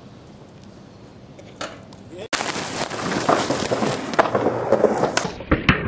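Skateboard wheels rolling loudly on concrete, starting abruptly about two seconds in, with sharp clacks of the board near the end.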